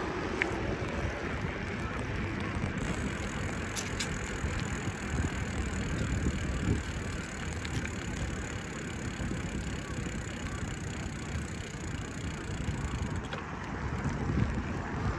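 Bicycle rolling along, heard from a camera on the bike: a steady low rumble and wind on the microphone, with two faint ticks about four seconds in.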